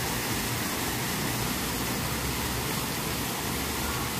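Water jets of a decorative fountain splashing into their pool, a steady rushing hiss.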